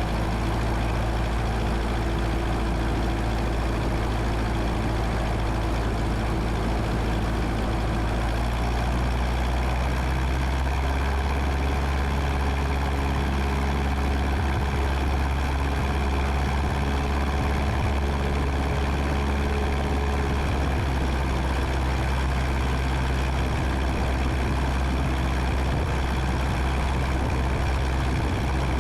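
The 1977 Cessna 172N's four-cylinder Lycoming engine and propeller droning steadily in the cabin during slow flight, the low tone shifting slightly about nine seconds in.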